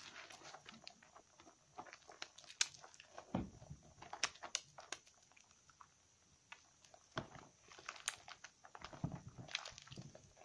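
Wet squelching and crackling of thick soap lather as hands squeeze and rub soaked soap and a foam sponge, with irregular sharp crackles and a few deeper squishes.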